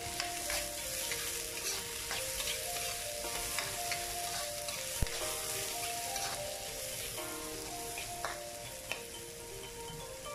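Diced carrots and onion sizzling in a hot wok as a metal ladle stirs them, with scattered scrapes and clicks of the ladle against the pan and one sharp clack about halfway through.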